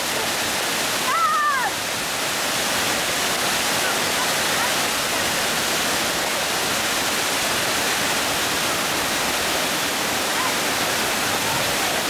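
Steady rush of a waterfall, falling water heard at close range. About a second in, a short high-pitched squeal rises and falls.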